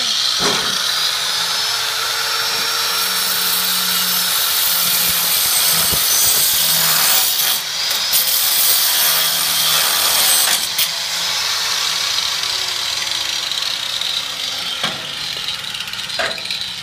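Angle grinder cutting through metal, running continuously with a high, wavering whine as the wheel's speed shifts under load.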